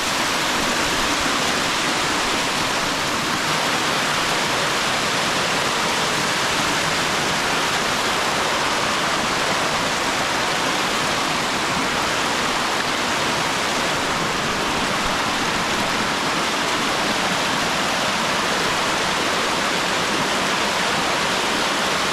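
Tumpak Sewu waterfall: a steady, loud rush of falling water with no let-up.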